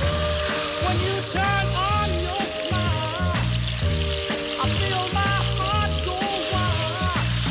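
Beef-and-pork mince sizzling in hot oil in a pot while it is stirred with a wooden spoon, with background music carrying a bass line and a melody over it.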